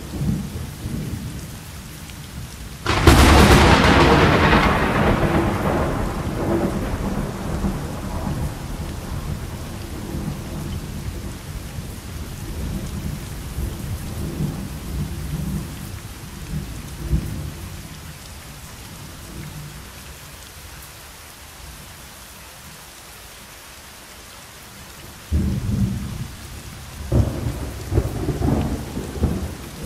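Thunderstorm: a sudden loud thunderclap about three seconds in that rolls off slowly over several seconds, then low rumbling of thunder, with fresh rumbles near the end, over a steady hiss of rain.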